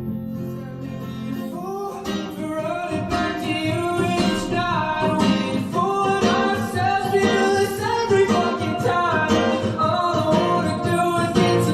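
A song with acoustic guitar and a male singing voice, growing fuller about two seconds in.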